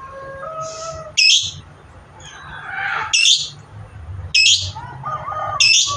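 Pet lovebird giving four sharp, shrill, high chirps spaced a second or two apart, with softer, lower bird calls between them.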